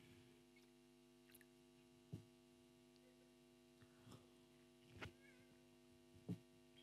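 Near silence: a steady electrical hum with a few faint knocks as a glass jug and drinking glass are handled and set down.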